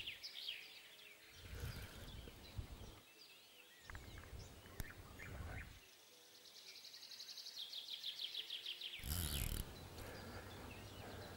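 A spinning fishing reel being wound in a run of fast ticks that grows louder, as a hooked carp is brought in close, with scattered bird chirps around. A brief louder burst of noise comes about nine seconds in.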